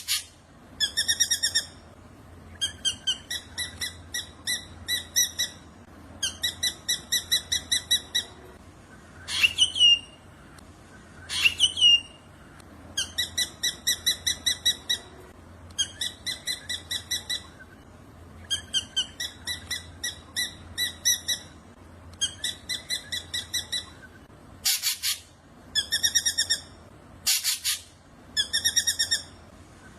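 Black drongo calling: bout after bout of rapid, evenly spaced, buzzy notes, each bout a second or two long. Two sharp downward-swooping whistles come about ten and twelve seconds in, and two short harsh rasps come near the end.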